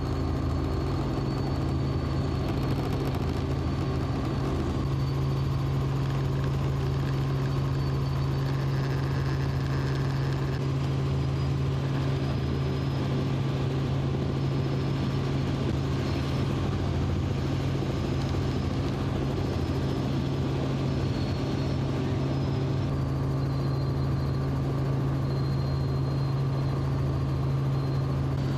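Helicopter's engine and rotor running steadily, heard from on board: a constant low drone with a faint high whine above it.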